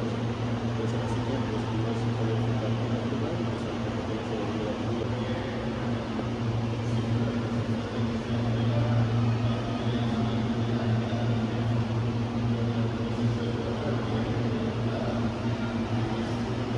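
Steady low machine hum, a constant drone under an even hiss.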